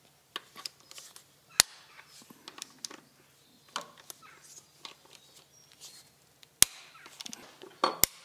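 Socket wrench working the bolts of a crankshaft counterweight: scattered metallic clicks and light taps, with two sharp clicks, one about a second and a half in and one about two-thirds of the way through.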